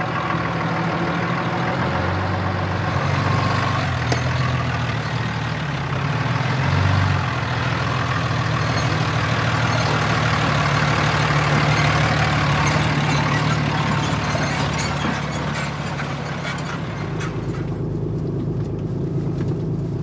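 Diesel engine of a Ram 3500 pickup running at low speed while the truck backs slowly into its spot. Near the end the sound turns deeper and duller.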